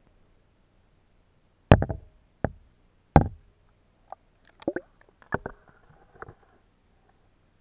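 Handling knocks from an underwater camera bumping against a water-filled plastic tub: three loud knocks in the first half, then a run of lighter clicks and taps.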